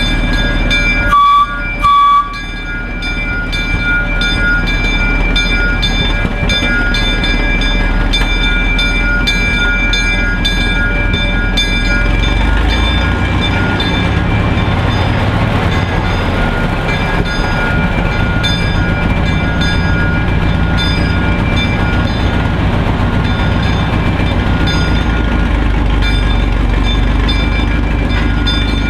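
Plymouth gasoline switcher locomotive's engine running steadily, with two short horn blasts about a second in (two short blasts being the standard railroad signal to proceed). From about twelve seconds in, the engine's low rumble grows louder.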